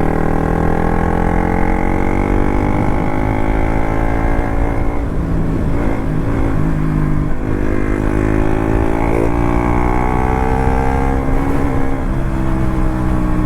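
KTM RC 200's single-cylinder four-stroke engine running under way through its modified exhaust, its note falling slowly over the first few seconds as the revs drop, then holding steadier. Wind rumble on the helmet microphone runs underneath.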